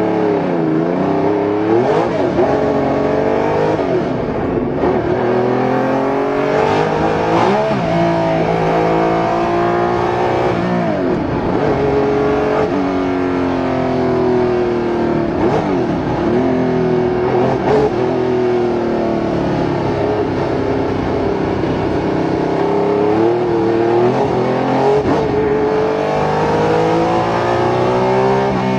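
Ferrari 312T's flat-twelve racing engine heard from on board at speed, repeatedly revving up and dropping sharply in pitch at each gear change.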